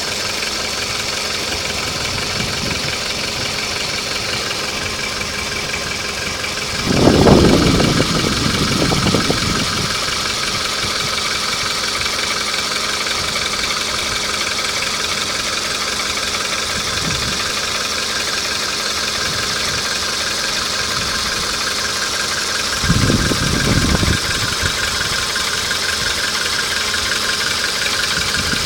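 Volkswagen Polo engine idling hot with a knocking noise, the knock that shows once the engine is warm. There are two louder low surges, about seven seconds in and again near twenty-three seconds.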